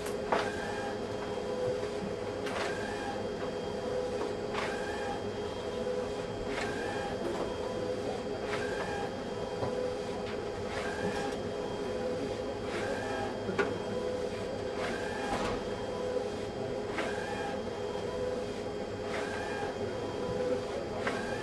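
Large-format HP roll-fed printer (drum plotter) printing: a steady motor hum, with a click and a short whirr about every two seconds as the carriage makes each pass and the paper steps forward.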